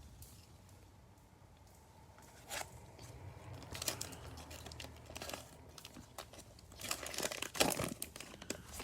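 Plastic cello-pack wrapper of a Prizm football card pack crinkling and tearing as it is opened by hand. The crackling comes in irregular bursts starting a couple of seconds in and is thickest near the end.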